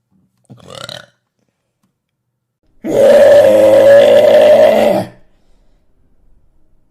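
A woman's long, very loud burp lasting about two seconds, coming about three seconds in, after a brief, quieter sound about half a second in.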